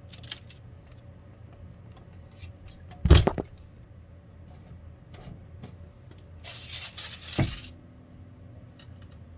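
Heat Press Nation Craft Pro heat press opening with a loud clunk about three seconds in, then a rustling slide about a second long ending in a knock as its pull-out drawer comes out after the pre-press.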